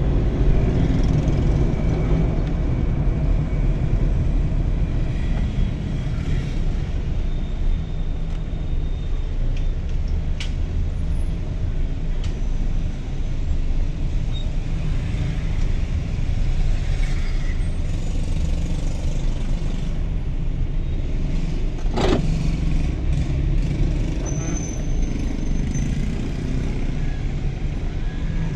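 Steady low rumble of a car's engine and tyres heard from inside the cabin while driving slowly in traffic, with a single sharp click about three-quarters of the way through.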